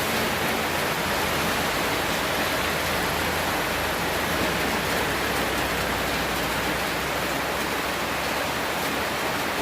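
Steady rushing of a river waterfall, water pouring without a break.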